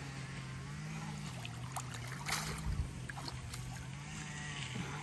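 Hooked catfish splashing at the surface beside the landing net, a few short bursts about halfway through. Under it a motor drones steadily, its low pitch wavering slowly.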